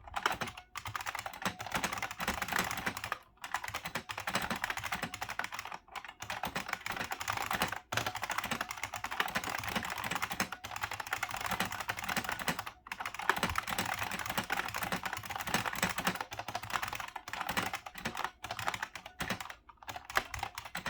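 Continuous typing on a 1990 IBM Model M 1391401 keyboard, its buckling-spring keys clicking in a dense stream of keystrokes, broken by brief pauses every few seconds. The typing stops at the very end.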